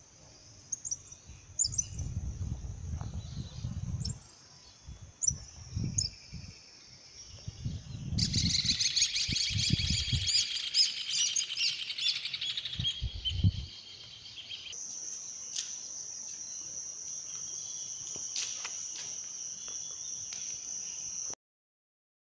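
Wild birds chirping and singing outdoors, densest in a lively burst about eight seconds in, over a steady high-pitched background tone. Low rumbling thumps come and go in the first half. The sound cuts off suddenly near the end.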